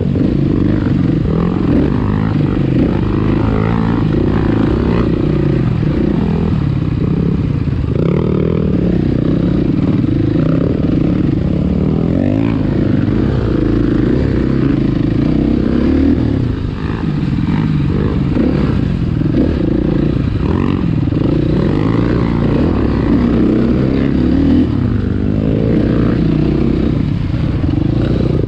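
Dirt bike engine running close up, its pitch rising and falling as the throttle is opened and eased over the trail, with a brief drop in level about two thirds of the way through.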